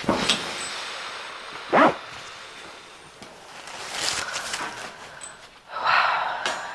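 Chiropractic spinal decompression pull: a sharp click at the start and a louder short pop about two seconds in as the joints release. Breathy vocal sounds from the patient follow, once around the middle and once near the end.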